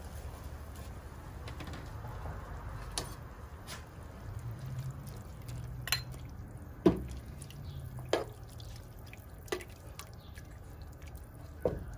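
Pot of water at a rolling boil, bubbling steadily, with several sharp plops and knocks as chicken skins are tipped in from a bowl and stirred with a spoon; the loudest plop comes about seven seconds in.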